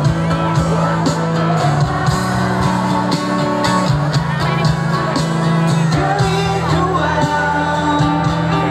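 Live band music with singing, played loud through a concert sound system and heard from within the crowd, with a steady bass line.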